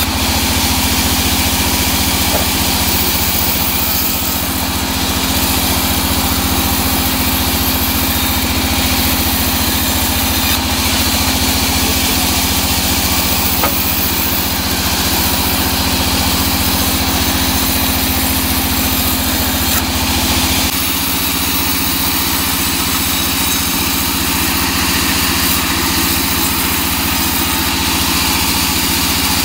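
Vertical band saw ripping a teak log lengthwise: a steady machine drone with a hiss of the blade in the wood. About two-thirds of the way through, the low hum drops a step.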